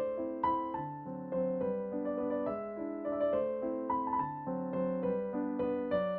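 Background music: a gentle piano melody played over flowing chords, with notes changing several times a second.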